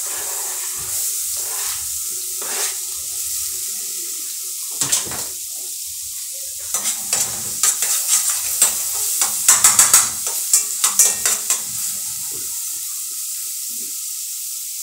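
Butter sizzling steadily in an aluminium pot as chopped garlic and spring onions go in, with a run of sharp scrapes and clinks of a utensil against the pot from about five to twelve seconds in.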